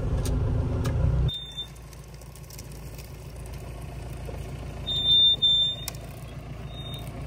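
Mahindra Thar engines rumbling heavily for about a second, then cutting suddenly to a quieter engine hum. Short, high electronic beeps sound over the hum: once early, twice longer and loudest about two-thirds of the way through, and once more near the end.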